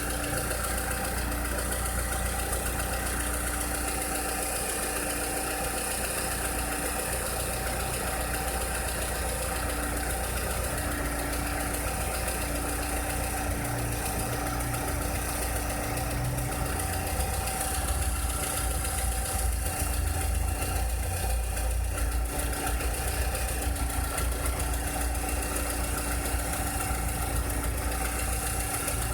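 Volkswagen SpaceFox's 1.6 flex four-cylinder engine idling steadily, with the strange noise that the owner wants to show.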